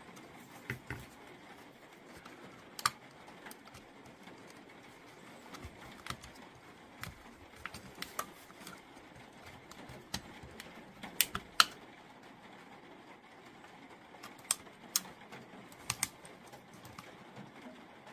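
Irregular small clicks and taps as a soldering iron tip and a small screwdriver work the old circuit board loose from a Makita 18 V battery pack's plastic case, with a quick cluster of sharper clicks about two-thirds of the way through.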